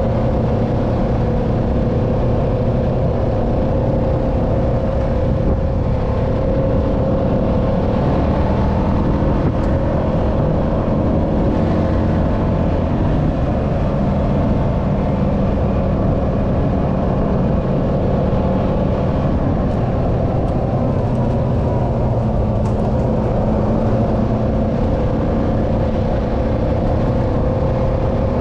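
ATV engine running at a steady pitch while riding along.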